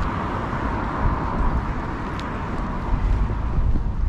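Outdoor background noise: a steady low rumble under an even hiss, with a few faint ticks.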